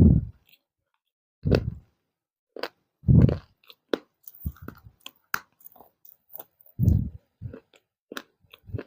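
Pieces of baked clay being bitten and chewed: four heavy crunching bites, with many short crisp crackles in between.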